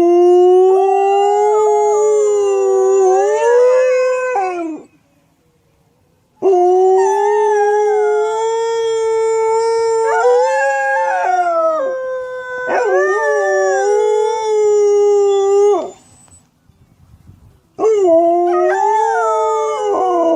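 A dog howling: three long, drawn-out howls with short pauses between them, the middle one the longest. Each holds a fairly steady pitch, then wavers upward before breaking off.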